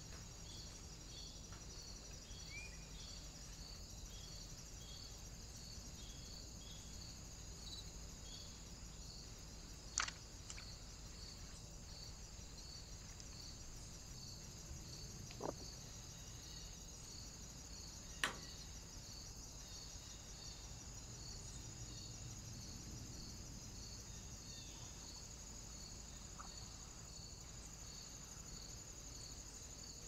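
Faint insect chorus: a steady high-pitched buzz with a regular chirp about twice a second, typical of crickets or bush-crickets. Three short sharp clicks stand out, about ten, fifteen and eighteen seconds in.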